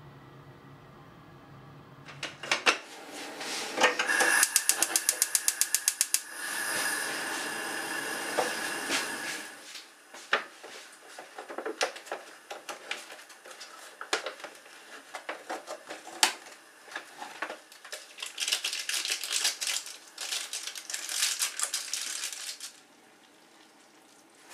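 Paper and plastic packaging crinkling, rustling and tearing as a Chapagetti cup noodle's lid is peeled back and its seasoning packets are handled. About four seconds in, a fast even run of clicks, about seven a second for two seconds.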